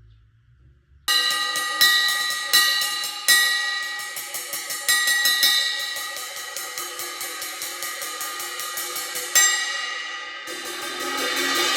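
Waldman B20 crash cymbal played with sticks. About a second in comes a loud crash, then a run of quick strokes on the cymbal, several of them louder crashes. The ringing wash swells up near the end.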